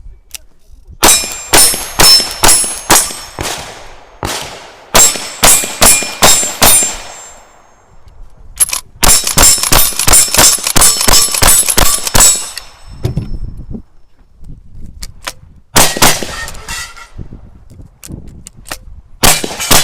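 Rapid strings of gunshots from cowboy action shooting guns, several shots about a third of a second apart, each followed by the clang of steel targets being hit. Three fast strings come in the first twelve seconds, then a few scattered shots near the end.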